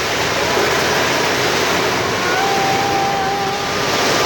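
Heavy rain pouring down, a loud steady hiss, with a faint held tone about halfway through.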